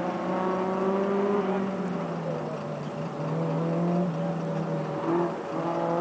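Car engine running hard through an autocross cone course, its note holding steady and then dipping and rising a couple of times as the driver lifts and gets back on the throttle.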